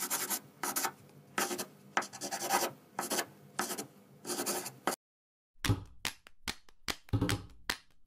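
Pencil scratching across paper in about seven short writing strokes. After a brief pause comes a run of quick sharp ticks and scrapes as the pencil's eraser is worked on the paper.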